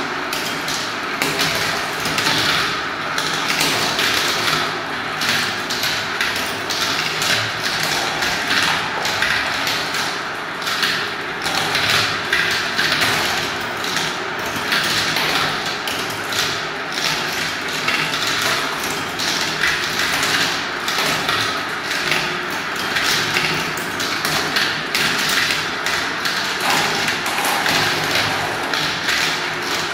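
Many marbles rolling and clattering through a clear plastic marble run, circling in funnel bowls and dropping through the tubes: a dense, unbroken stream of small clicks and taps.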